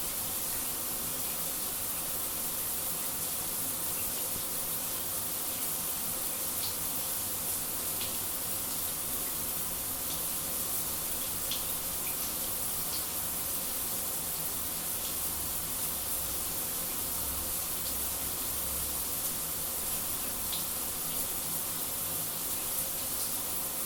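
Shower running: a steady, even hiss of falling water spray, with faint small ticks of drops now and then.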